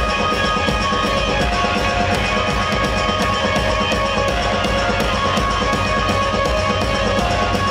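Live band playing loud music: electric guitar over sustained keyboard and electronic tones, with a steady beat pulsing through.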